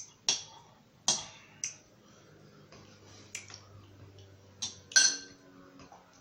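Close-miked eating sounds: about seven sharp, irregular clicks and taps over a quiet background, the loudest about five seconds in.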